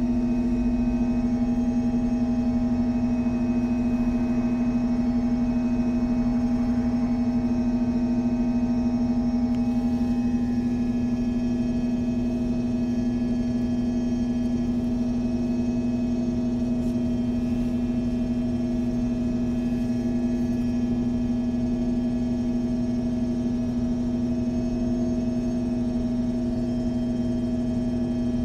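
MAN Lion's City G NG313 CNG articulated bus standing at idle, heard from inside the bus: a steady, even hum with one strong drone note that does not change.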